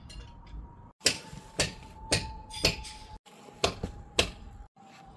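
Sharp hammer strikes, about two a second, over a faint steady high whine, with a few abrupt breaks in the sound.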